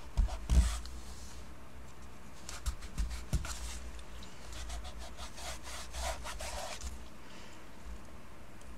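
Distress Crayon rubbed over acrylic-painted paper: short scratchy rubbing strokes in three brief spells, with a few light taps in the middle.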